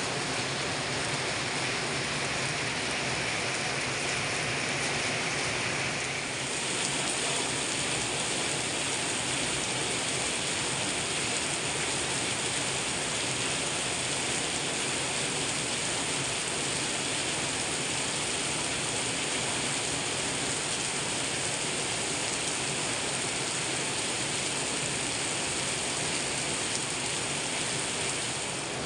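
Heavy rain pouring steadily. About six seconds in, the sound turns hissier and brighter.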